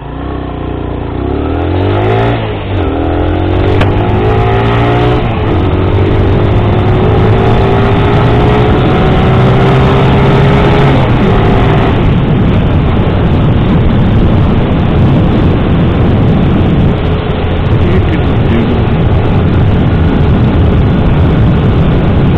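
Sinnis Max 2 125cc motorcycle engine accelerating hard through the gears, its pitch climbing and dropping at two upshifts in the first few seconds, then rising slowly. From about halfway on it holds speed and heavy wind noise on the helmet mic covers most of the engine.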